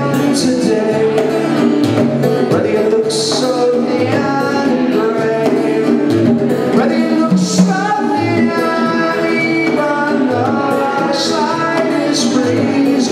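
Live band music: guitar and bongos playing, with a man singing.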